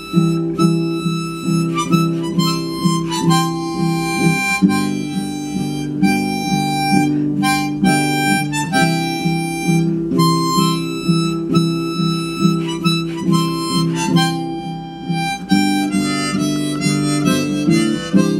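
Instrumental break of a 1930s western song: a sustained lead melody over steady strummed chords, about two a second.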